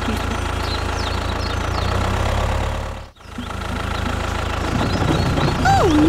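Toy tractor with a steady engine-like hum, breaking off briefly about three seconds in. Near the end a whistle-like tone sweeps up and down twice.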